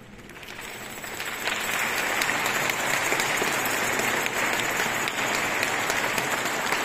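Audience applauding: the clapping builds over the first second and a half and then holds steady.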